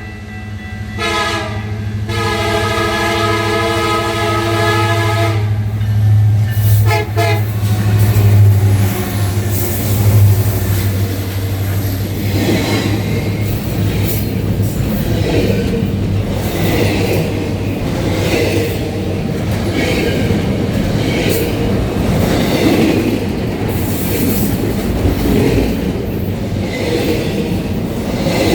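Diesel freight locomotive's air horn sounding a few blasts, the last a long one that ends about seven seconds in. The train then rolls past with a steady rumble and the wheels clacking over the rail joints.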